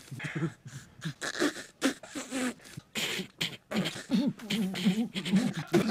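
Two cartoon teenage boys snickering: a string of short, broken laughs.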